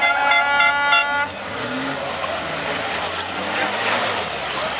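A horn blares in one steady, high tone and cuts off abruptly just over a second in. The race trucks' engines then carry on as a steady, distant rumble.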